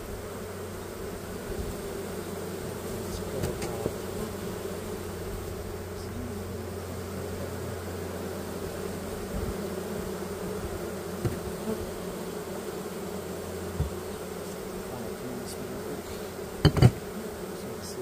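Honeybees buzzing steadily around an open hive as its frames are inspected. Two quick thumps come close together near the end.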